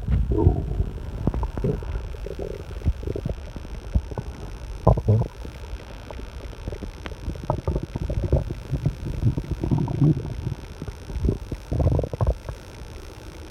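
A person's empty stomach growling loudly: irregular low gurgles and rumbles, some brief, some lasting about a second, keeping on without a break.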